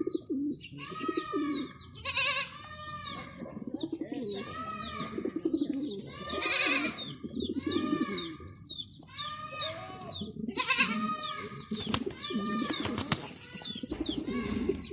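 Male pigeon cooing in a display, low rolling coos repeated over and over, with higher arching calls repeating alongside them.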